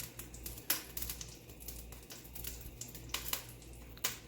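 Scattered irregular crackles and pops from goat meat cooking off its water in a hot pot, over a low steady hum.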